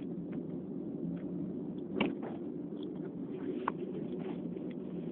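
Steady low background hum, with one short, sharp sound about two seconds in and a fainter click a little later.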